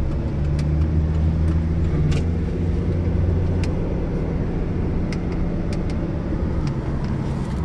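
Steady low engine and road rumble of a car heard from inside the cabin while driving, with a few faint ticks.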